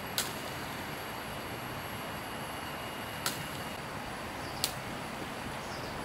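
Three short, sharp snaps of leaves and twig tips being picked by hand from a shrub, over a steady background hiss with faint high steady tones.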